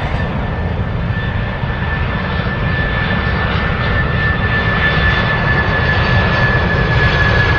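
Jet aircraft engines roaring with a steady high whine, growing gradually louder as the aircraft passes.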